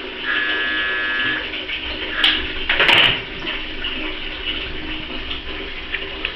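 Toilet flush water running steadily, with a brief steady tone lasting about a second near the start and a short, loud burst of noise about three seconds in.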